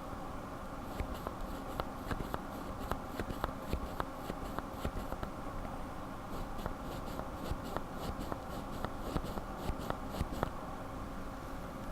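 Lubed linear mechanical keyboard switches pressed and released repeatedly, heard close up as a run of sharp clicks. The clicks come for about four seconds, stop briefly, then come again for another four seconds.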